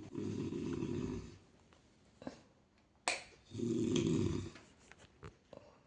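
A man snoring in deep sleep: two long snores about three and a half seconds apart, with a sharp click between them.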